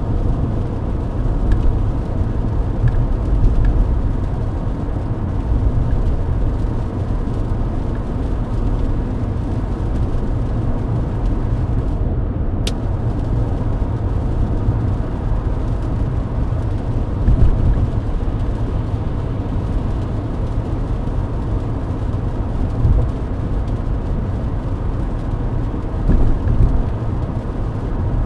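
Steady road and engine noise of a Mercedes-Benz W124 cruising on a wet highway in the rain, a constant low rumble with tyre hiss. A single short click about halfway through.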